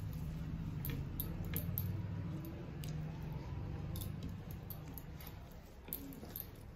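Eating rice and fish curry by hand: fingers squishing and mixing the rice on plastic plates, and chewing. Soft wet squishes and scattered small clicks sound over a low steady hum.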